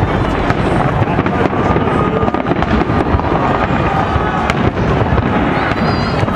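Aerial fireworks shells bursting and crackling in a dense, continuous barrage of bangs, with no let-up.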